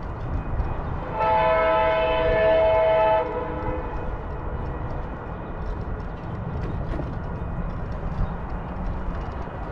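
A train horn sounds once for about two seconds, a chord of several steady tones, over a constant low rumble.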